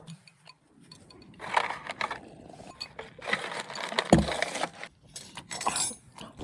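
Light clinks and scrapes of eating utensils against bowls, with rustling and one low thump about four seconds in.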